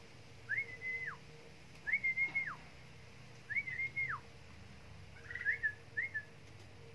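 A person whistling a series of short notes, each rising quickly to a held pitch and then sliding down at the end, about one every second and a half, the last two shorter and clipped.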